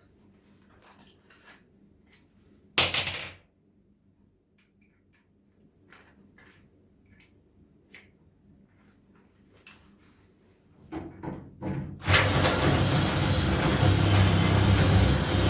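Clicks and clinks of metal tools being handled while a bigger drill bit is fitted, with one loud metallic clatter about three seconds in. Near eleven seconds an electric drill gives a few short bursts, then from about twelve seconds it runs steadily, boring into the filing cabinet's lock cylinder.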